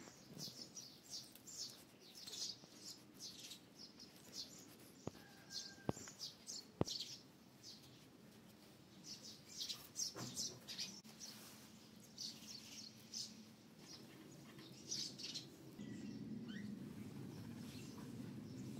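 Small birds chirping over and over in short, high calls. Three sharp clicks come about five to seven seconds in, and a low steady hum starts near the end.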